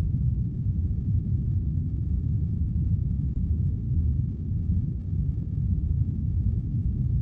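A steady low rumble, with no distinct strokes or pitched tones.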